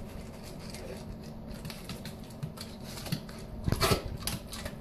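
A dog eating dry kibble from its bowl: irregular crunching and clicking of chewing and of the food shifting in the bowl. The sound is louder for a moment about four seconds in.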